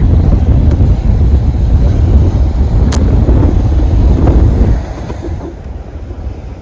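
Wind buffeting the microphone as a loud, low rumble that drops away suddenly near the end, with a single sharp click about three seconds in.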